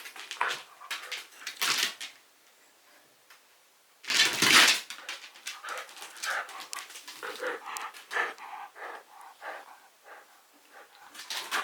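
Shiba Inu dog whining and yipping in many short cries, with a loud noisy burst about four seconds in after a brief quiet spell.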